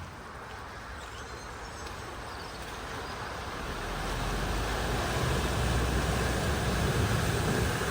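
A vehicle approaching, its engine and road noise growing steadily louder from about halfway in.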